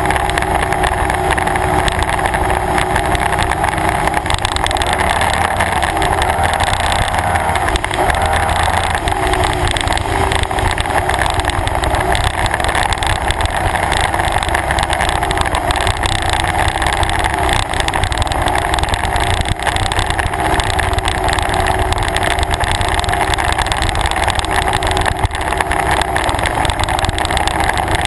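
Performance boat's engine running at steady low cruising speed, its pitch wavering slightly up and down.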